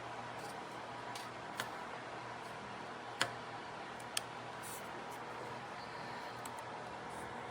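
Steady low hiss of room tone, broken by a few light clicks: about one and a half, three and four seconds in.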